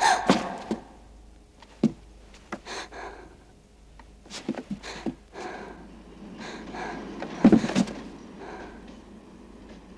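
Scattered knocks, creaks and footsteps on bare wooden floorboards as a boy moves about a small room, with a heavier thud about seven and a half seconds in as he drops to his knees.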